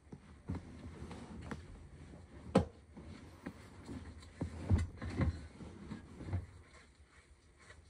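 Gloved hands handling plastic agar cups and container lids: a scattered run of light clicks and knocks, about eight in all, the sharpest about two and a half seconds in and just before five seconds.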